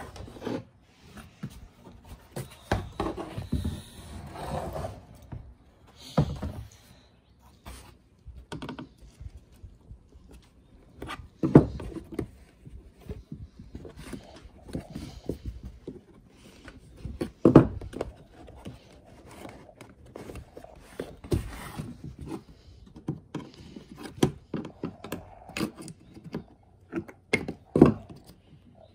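Plastic inner door trim panel of a Toyota HiAce being handled and worked apart on a wooden workbench: irregular clicks, scraping and knocks of plastic against wood, with a few sharper knocks spread through.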